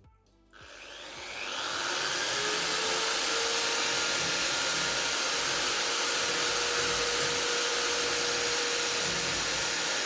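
A small electric motor switched on, spinning up over about a second and a half and then running steadily with a loud hissing rush and a steady hum.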